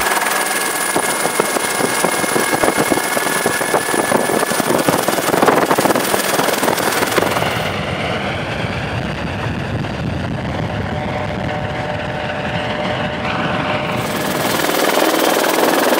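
Helicopter running, a steady din of rotor and engine noise with the blades' rapid chop. It turns duller for a few seconds past the middle, then brightens again near the end.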